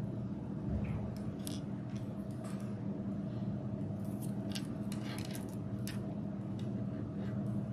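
Plastic lacing cord scraping and rustling as it is pulled through plastic pony beads, with scattered light clicks of the beads, over a steady low hum.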